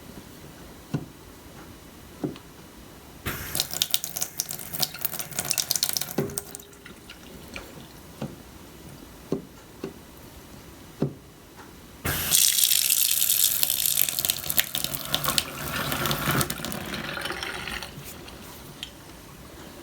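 Kitchen tap turned on and running into a sink twice, a short spell and then a longer, louder one, with short knocks and clicks between.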